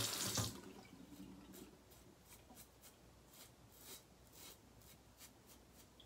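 Tap water running into a bathroom sink, dying away within the first second. It is followed by faint, short, scratchy razor strokes on a lathered face, a couple per second.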